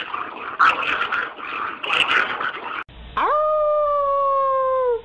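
A small short-coated dog howling: one long howl that rises quickly about three seconds in, holds its pitch, then sags slightly at the end. Before it, an irregular noisy stretch with short bursts.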